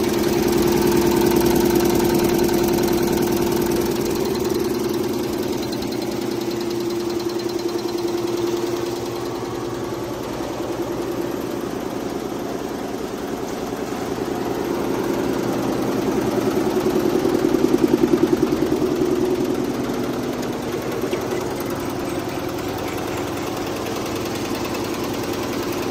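Roll-fed multi-needle quilting and embroidery machine running, its needle bar stitching with a fast, even mechanical clatter. It swells louder about a second in and again about two-thirds through.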